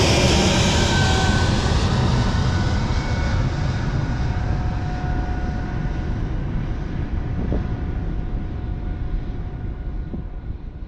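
Airbus A220-300's Pratt & Whitney PW1500G geared turbofans running as the jet moves away, the roar growing fainter and duller with a few faint steady whining tones, then fading out near the end.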